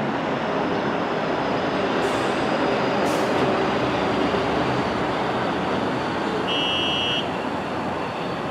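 Steady rumble and hiss of an elevated subway line and the city around it, with two sharp clicks about a second apart near two seconds in and a brief high tone near the end.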